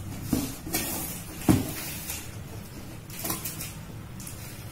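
A cardboard box being handled and laid down on a tiled floor: several knocks and scrapes, the loudest a sharp thud about a second and a half in. Near the end, scissors scraping and cutting at the box's packing tape.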